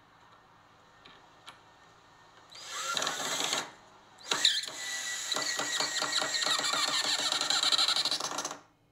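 Power drill driving a screw into plywood: a short burst about two and a half seconds in, then after a brief pause a steady run of about four seconds with a held whine, cutting off abruptly near the end.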